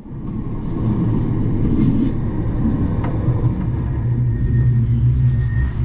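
Bombardier M5000 light-rail tram running at speed, heard from inside the car: a steady low rumble of wheels on the track, with a faint high whine near the end.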